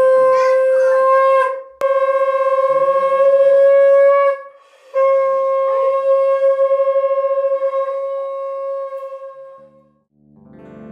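Conch shell (shankha) blown in three long blasts at one steady pitch, the last one fading away.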